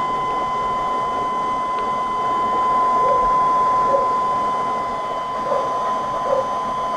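Steady mechanical hum with an even, high-pitched whine running through it. A few faint soft blips come in over it from about three seconds in.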